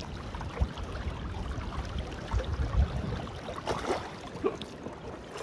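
Creek water sloshing around hands and waders as a steelhead is held in the current and released, with a splash about four seconds in as the fish kicks free.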